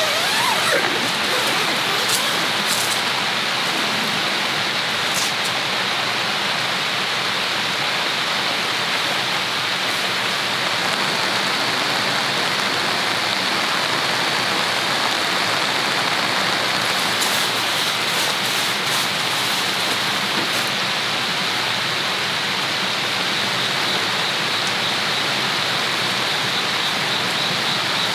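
Steady rain falling without letup, with a few sharp drip ticks here and there.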